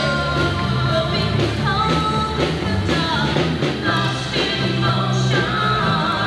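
A live rock band playing a song: electric guitars, drums and keyboard, with a lead singer.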